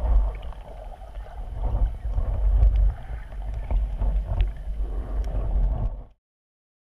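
Surf and current turbulence heard muffled through an underwater camera housing: a surging low rumble with scattered small clicks, cutting off abruptly about six seconds in.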